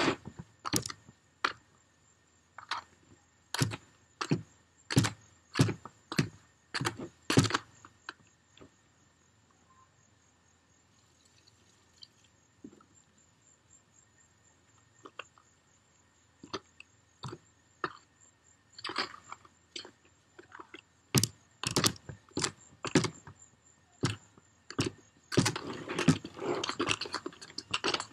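A hand tool knocking and scraping inside a plastic bucket as tile mortar is worked by hand: a run of sharp knocks, a quiet stretch in the middle, then more knocks and a gritty scraping near the end.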